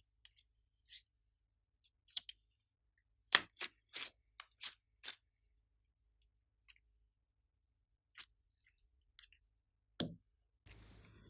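Slime being pressed and pulled by hand, giving off short sticky clicks and pops. There is a quick run of them a few seconds in and a louder pop near the end, with stillness between.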